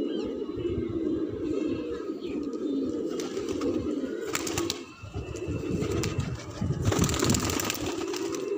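A flock of domestic pigeons cooing, many overlapping coos in a continuous low chorus. Near the end a rush of wing flaps as a pigeon takes off close by.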